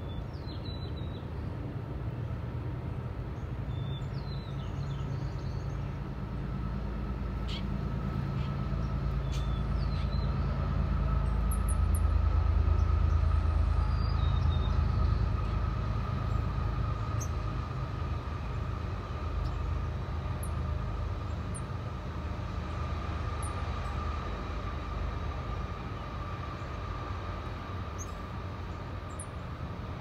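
Low rumble of a passing vehicle, swelling to its loudest about halfway through and then fading, with a faint steady hum above it. A few short small-bird chirps come in the first half.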